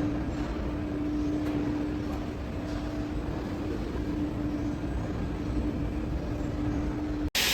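Industrial aluminium-profile sawing, drilling and milling machine running: a steady machine hum over a low rumble. The sound cuts off abruptly near the end.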